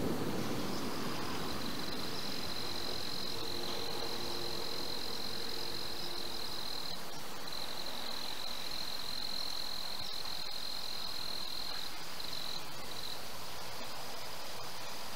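Insects trilling steadily at a high pitch in two overlapping tones, one dropping out now and then. A soft rush of wind fades over the first few seconds.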